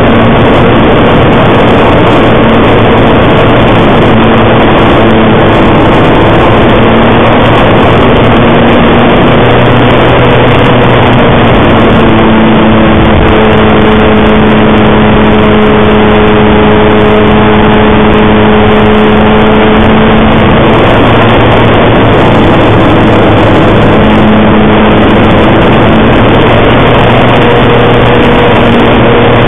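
Extra 300 model aircraft's engine and propeller running hard, heard from a camera mounted on the plane, very loud throughout. Its pitch shifts up and down with the throttle, holding steady for several seconds midway.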